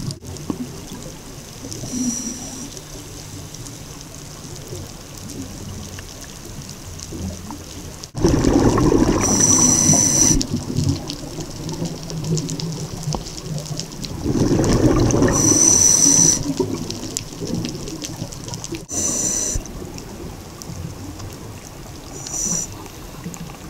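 Scuba regulator breathing heard underwater: a short high hiss with each inhalation and a bubbling rumble from each exhalation. Two long, loud exhalations come about eight and fourteen seconds in, with several shorter hisses between them.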